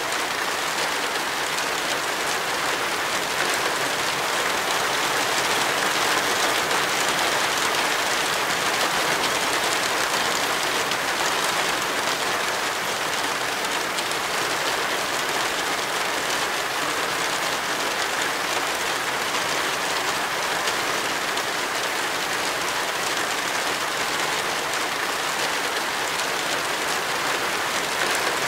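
Heavy rain falling steadily on a car, heard from inside the car as an even, unbroken hiss.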